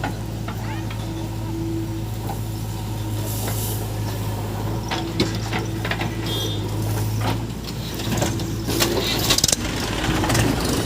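Heavy diesel engine running steadily, with a scatter of knocks and clatters in the second half.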